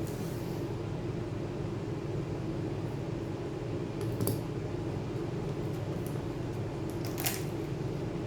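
Steady low background hum, with two light, sharp clicks about four seconds in and again about seven seconds in.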